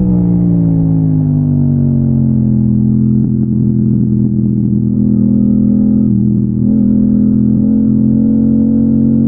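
Yamaha MT-07's parallel-twin engine running at steady throttle on the move. Its pitch eases down slightly over the first few seconds and then holds, with a brief dip in loudness about six and a half seconds in.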